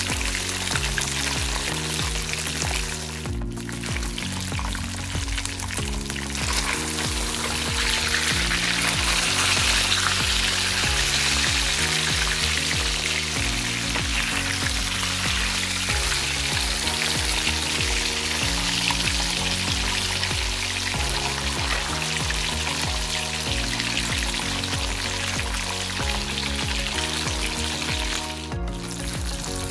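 Hot oil sizzling steadily as two whole fish shallow-fry in a nonstick pan, the sizzle briefly cutting out twice. Background music plays underneath.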